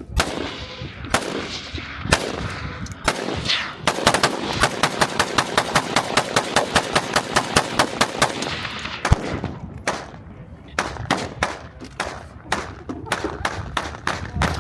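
Gunfire: a few single shots about a second apart, then a fast string of shots at about five a second lasting around four seconds, followed by a lone shot and another scattered run of shots near the end.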